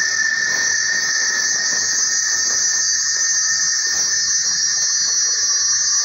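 Cicada buzzing in a loud, high, steady drone, with a second, lower steady insect tone underneath.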